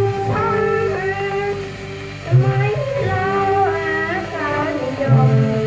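Old Thai popular song played from a shellac record: a Western-style band plays a wavering melody line over bass notes.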